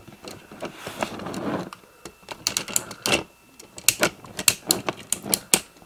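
Hard plastic action figures, a movie Leader-class Megatron being set beside a G1 Hot Rod, clicking and clacking as they are handled and posed: a soft rustle of handling at first, then a run of sharp, irregular clicks in the second half.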